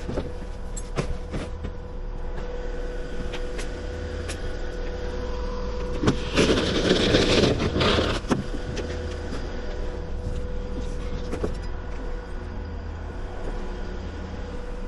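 An engine running steadily with a low hum and a constant whine. A louder burst of hissing noise comes about six seconds in and lasts under two seconds, and a few sharp knocks are scattered through.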